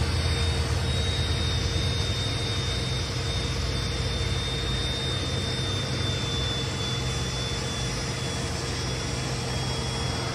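Cordless DeWalt drill spinning a foam buffing pad on a plastic headlight lens, running steadily with a high whine that sags slowly in pitch as the drill begins to die.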